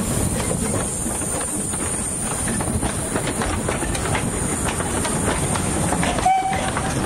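Narrow-gauge steam locomotive and coach running past close by, with a steady clatter of wheels and exhaust. A short whistle toot sounds about six seconds in.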